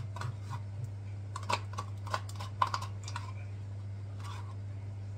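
A spoon scraping and tapping yogurt out of a plastic yogurt cup: a quick run of light clicks and scrapes from about a second and a half in to about three seconds in, over a steady low hum.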